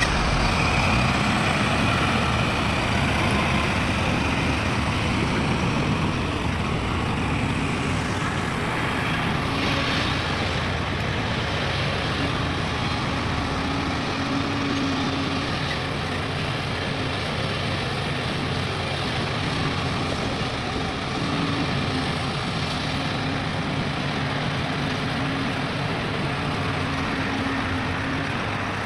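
Heavy diesel construction machinery running under load, a steady engine sound whose pitch shifts now and then as the machines work.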